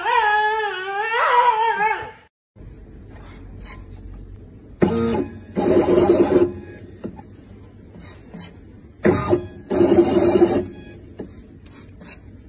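A husky gives a long, wavering howl-like whine for about two seconds. After a cut, the stepper motors of a pen-plotter robot whirr in two bursts of about a second and a half each as the machine moves its pen.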